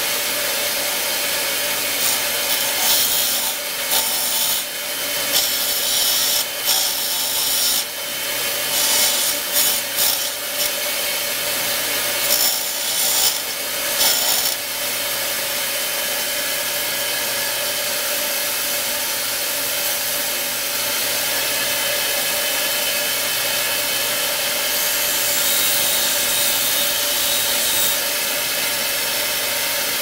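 Bench grinder motor running steadily with a constant hum, while a small metal piece is pressed against the grinding wheel in repeated short passes, each giving a loud grinding hiss. This is the piece's ends being tapered and rounded into a knife-like edge. The passes come thick for the first half, then the grinder mostly runs on its own, with a brief fainter grind near the end.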